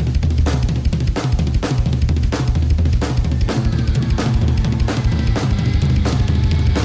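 Instrumental section of a hip-hop track: a steady drum-kit beat of kick, snare and cymbals over heavy bass, with a held synth or keyboard note joining about halfway through.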